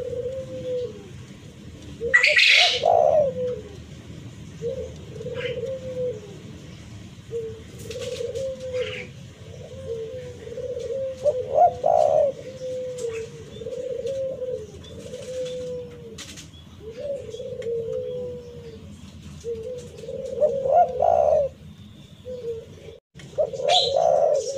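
Spotted dove (tekukur) cooing: short, throaty coo phrases repeated one after another. This is the territorial call used to lure and challenge rival doves. A few brief, sharper and louder sounds break in, about two seconds in, around the middle and near the end.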